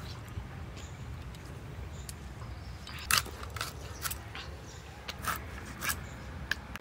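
A large silver carp being cut on a boti, the blade going through flesh and bone with scattered sharp clicks and cracks, the loudest about three seconds in.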